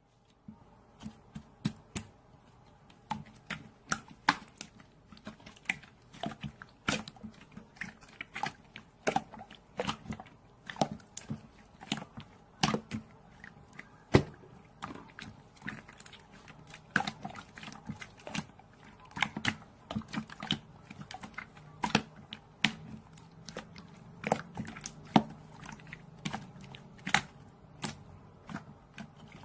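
Irregular sharp clicks and crunches, a few a second, with a faint low hum growing in the last several seconds.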